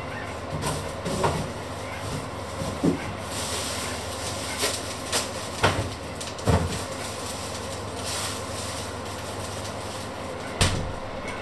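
Scattered knocks and clinks of kitchen utensils and dishes being handled, about eight of them, over a steady low running noise with faint hiss now and then.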